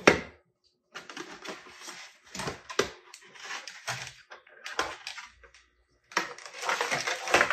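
Packaging being handled: a moulded insert lifted out of a cardboard box and cables moved about inside it, heard as a string of short rustling, clattering bursts. A sharp knock right at the start is the loudest sound, and the bursts grow louder again near the end.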